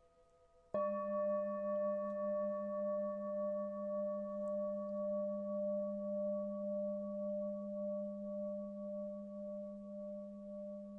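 A metal Tibetan singing bowl struck once about a second in, then ringing on with a low hum and several higher overtones, its loudness wavering in a slow pulse as it gradually fades.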